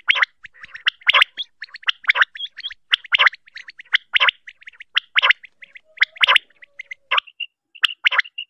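Common quail (batair) calling: a short, loud call repeated about once a second, with quieter quick notes between the calls.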